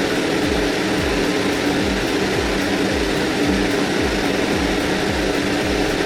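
An engine running steadily, with a regular low throb under a constant hum.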